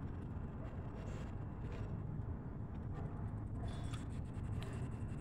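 Chewing and crunching of a raw lemon drop pepper, with faint scattered mouth clicks over a steady low outdoor rumble.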